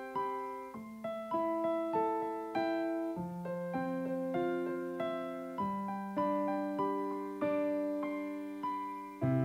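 Background music: a slow piano melody, single notes and chords struck a little under twice a second and left to ring and fade.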